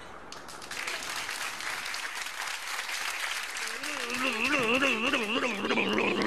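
Studio audience applauding, a dense patter of clapping. From about four seconds in, a wavering tone joins over the clapping, rising and falling in pitch about twice a second.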